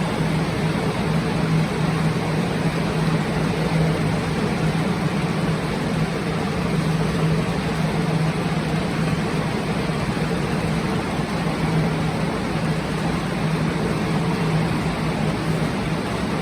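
Plastic air-mover drying fans running steadily: a constant rushing of air with a low motor hum, blowing on a ceiling to dry it after water damage.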